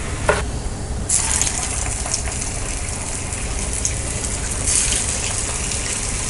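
Hot oil sizzling and bubbling around bonda batter deep-frying in a kadai, a steady hiss that grows much louder about a second in. A short knock sounds just after the start.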